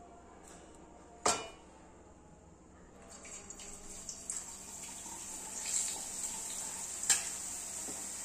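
A steel ladle clinks sharply against metal, and from about three seconds in, drops of gram-flour batter falling through a perforated spoon into hot oil set up a steady sizzling hiss that builds. Another sharp metal tap of the ladle on the perforated spoon comes near the end.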